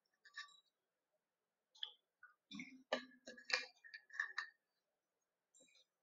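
Faint, scattered light clicks and small handling noises, bunched together between about two and a half and four and a half seconds in.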